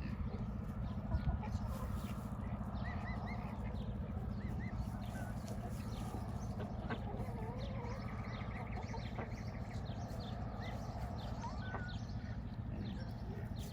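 A poultry flock calling: many short high chirps and peeps with scattered clucks, over a steady low hum.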